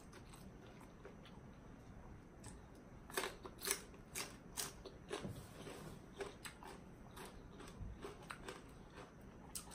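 Close-up chewing of crunchy food, a series of irregular crunches, about two a second, starting about three seconds in.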